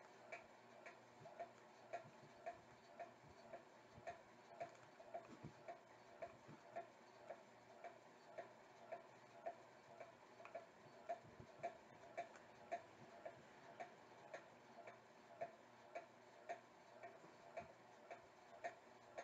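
Faint steady ticking, evenly spaced at about two ticks a second.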